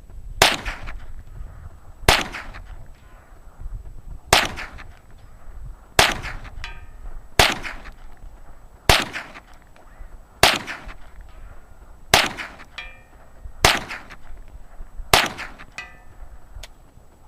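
Ruger 10/22 .22 rifle firing ten shots in a steady string, about one every second and a half. After three of the shots comes a faint ringing about half a second later, a hit on a distant target.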